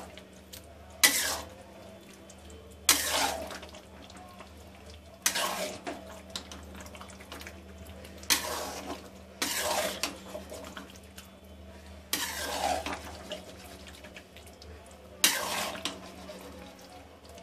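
Spatula stirring chicken pieces through thick masala gravy in a large metal pot, scraping the pot about seven times, one stroke every two or three seconds, over a low steady hum.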